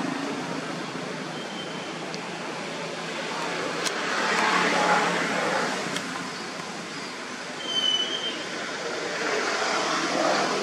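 Passing road traffic: a bed of rushing noise that swells about four seconds in and again near the end, with a couple of short high chirps.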